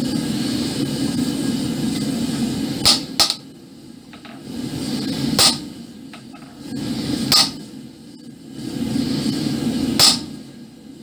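Five sharp metallic blows of a hammer on a hand-held chisel set on a red-hot iron bar on the anvil. Two come close together about three seconds in, then single blows about two seconds apart. A steady background hiss runs underneath.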